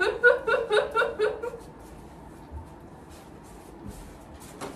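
A woman laughing in a quick run of about six 'ha' pulses that fades out within the first second and a half. Then quiet room sound with faint rustles and a light click near the end.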